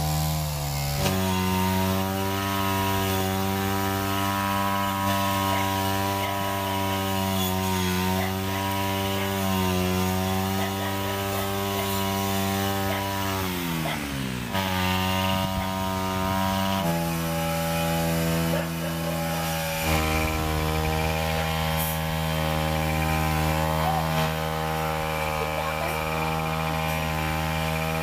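Petrol brush cutter engine running fast with a steady buzz. Its pitch steps up about a second in, sags briefly near the middle and comes back up, then shifts slightly a couple more times as the throttle changes.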